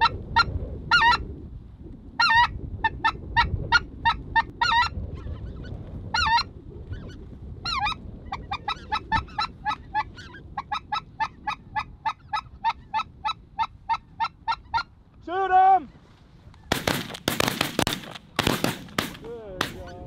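Repeated high-pitched snow goose calls, mostly short single notes, running for a stretch in a fast even series of about three a second, with one lower, longer call about three-quarters of the way in. Near the end, several loud bursts of noise.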